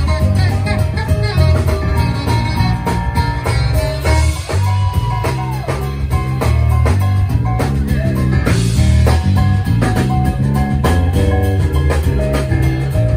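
Live band playing an instrumental passage: electric keyboard, saxophone and drum kit over a steady beat, with a long held note that bends partway through.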